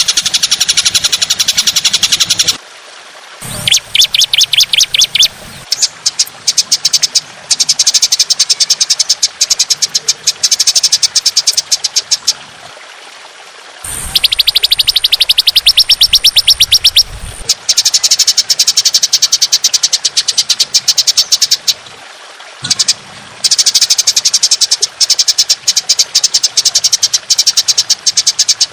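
A songbird giving rapid, harsh rattling trills (the 'long rough shots' of a masteran bird-song training recording), in bouts of a few seconds broken by short pauses. A steady low hiss sits underneath.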